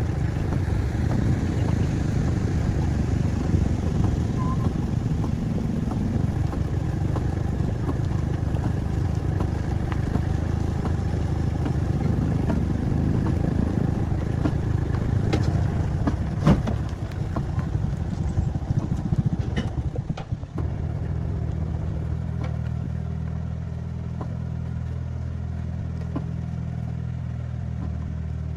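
An engine running with a rough, dense rumble and a few sharp knocks past the middle, then settling into a steadier, even hum for the last third.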